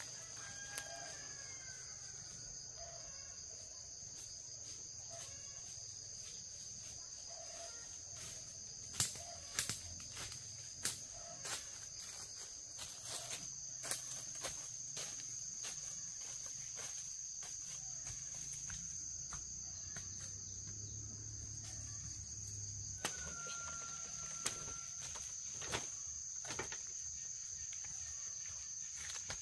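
Steady, high-pitched outdoor insect chorus, with scattered sharp clicks and knocks through the middle.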